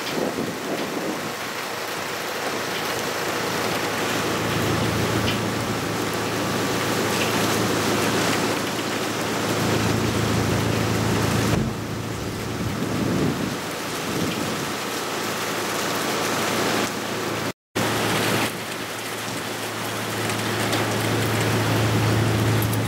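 Heavy cyclone rain pouring onto wet asphalt, with strong gusting wind making the rushing swell and ease. The sound cuts out for an instant about two-thirds of the way through.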